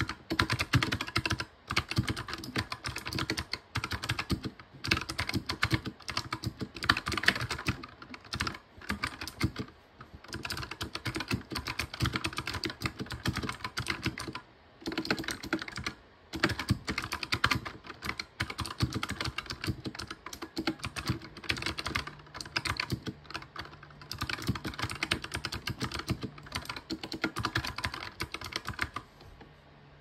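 Mechanical keyboard being typed on fast and without a break, a dense run of key clicks and clacks with a few brief pauses, played as a switch sound test.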